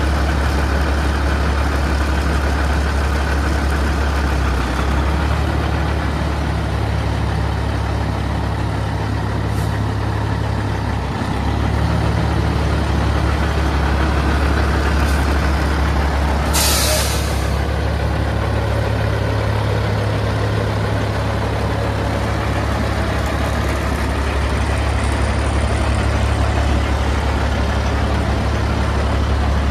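Kenworth T660's CAT C15 550 hp inline-six diesel idling steadily, with a short, sharp hiss of air released from the truck's air system about halfway through.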